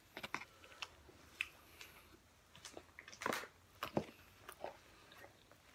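Close-miked eating sounds: chewing and mouth smacks, with scattered soft clicks, the loudest about three and four seconds in.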